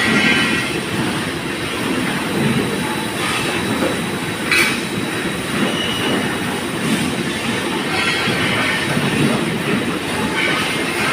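Manual grinding machine running with a steady low rumble, a higher hiss coming back every second or two, and one short sharp sound about halfway through.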